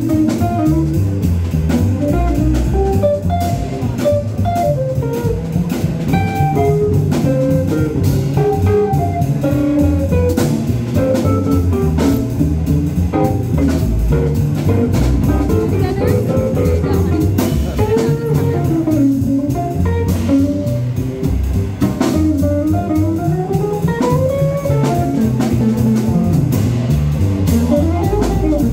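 Live jazz trio: an electric guitar plays fast single-note lines that climb and fall, over upright bass and a drum kit played with sticks, cymbals ringing throughout.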